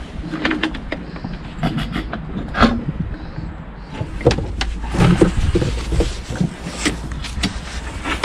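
Handling noise as the camera is picked up and moved: scattered knocks, clicks and rubbing, over a steady low rumble.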